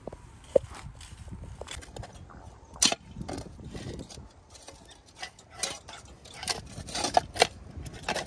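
Metal shovel blades digging into rocky, gravelly soil: irregular scrapes and sharp clinks as the blades strike stones and scoop dirt, with a few louder strikes near the middle and toward the end.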